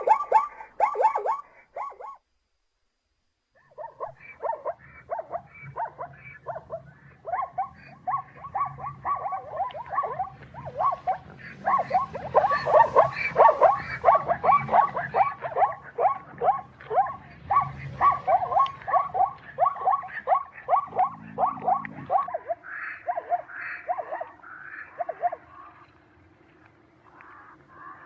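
Zebra barking: a long run of short, repeated yelping calls, about three a second. It breaks off for about a second two seconds in, then comes back and thins out near the end.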